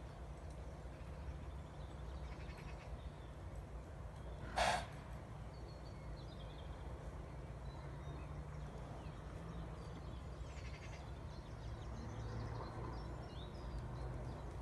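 A horse gives a single short snort about four and a half seconds in, over steady low background noise.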